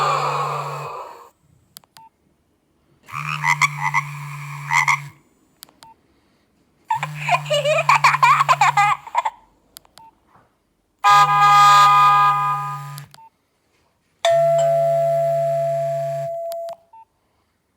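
Nokia 1600 mobile phone playing a string of different ringtones through its small loudspeaker, each about two seconds long with short silent gaps between, five in all, with a steady low buzz under each. The last is a held tone that slowly fades.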